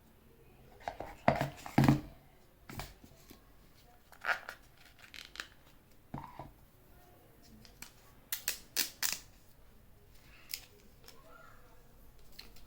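Hands unpacking an Apple AirPods Pro box: irregular clicks, taps and rustles of cardboard and plastic packaging. The loudest come about a second in and again in a quick group around eight to nine seconds.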